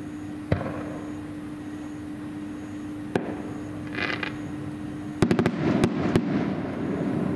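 Aerial fireworks going off: a sharp bang about half a second in and another near three seconds, a brief crackle around four seconds, then a quick run of several bangs between five and six seconds in. A steady low hum runs underneath.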